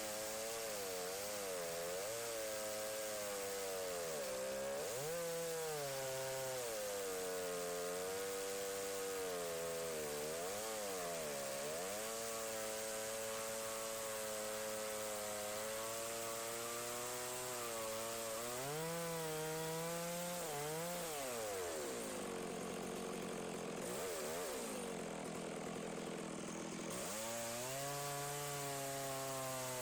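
Stihl MS 660 two-stroke chainsaw with a 36-inch bar and ripping chain, running under load in a Granberg Alaskan chainsaw mill as it rips a maple log into slabs. The engine pitch wavers and dips again and again as the cut loads it, sagging lower and rougher for a few seconds near the end before picking back up.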